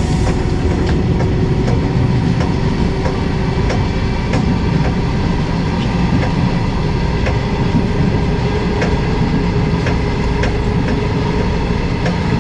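EMU1200 Tze-Chiang electric multiple unit running at speed, heard from inside the car: loud, steady running noise with a constant whine, and wheel clicks over the track about once a second.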